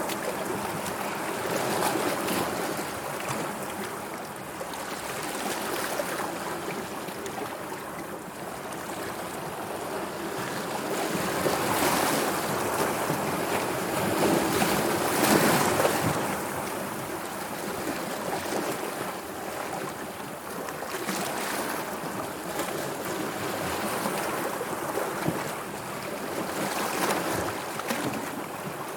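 Sea waves washing in and out, a continuous wash of water that swells louder about halfway through and then eases.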